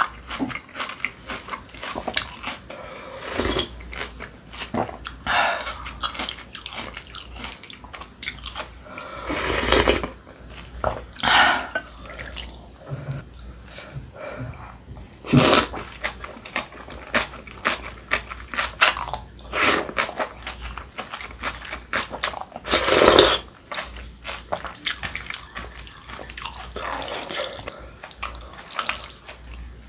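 Close-miked eating of janchi guksu, Korean noodles in spicy broth: wet slurps of noodles and broth from a wooden spoon, with chewing and small mouth clicks in between. A few longer, louder slurps stand out.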